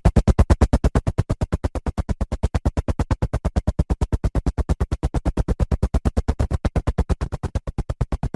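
Helicopter rotor blades beating the air in a fast, even chop of about eleven pulses a second, slowly getting quieter.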